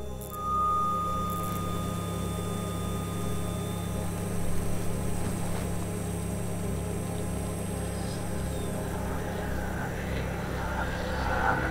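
Low, steady droning hum of the film's ambient sound design, with a thin high tone held over it for the first few seconds.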